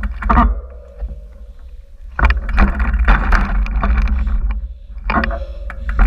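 Mountain bike rolling over rough rock: tyres crunching and the bike's frame and parts rattling, in uneven surges, over a low wind rumble on the handlebar camera's microphone.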